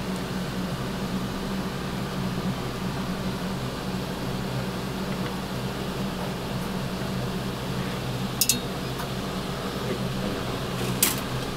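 Steady mechanical hum of kitchen ventilation running, with two short clicks near the end.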